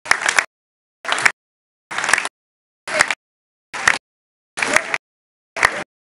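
Gym noise from a basketball game chopped into short bursts, about seven of them roughly a second apart, with dead silence between: the recording's audio keeps dropping out.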